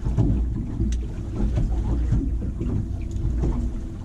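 Wind buffeting the microphone on an open boat: a steady low rumble, with one sharp tick about a second in.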